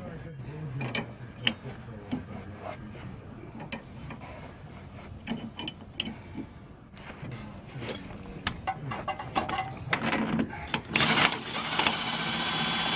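A hand wrench works a tie rod nut, giving scattered metal clicks and scrapes. About ten seconds in, a power ratchet starts and runs for roughly three seconds, spinning the nut off.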